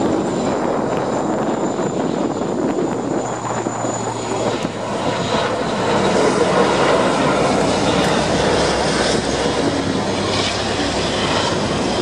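Airbus A400M's four Europrop TP400 turboprop engines running during a display flypast: a steady, dense engine noise with a low hum, growing a little louder about halfway through. A faint high thin whine in the first few seconds fades out.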